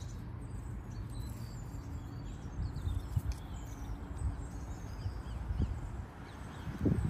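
Outdoor ambience: a steady low wind rumble with faint bird chirps, and a few soft knocks from the fire-starter tube and rope tinder wick being handled, heavier near the end.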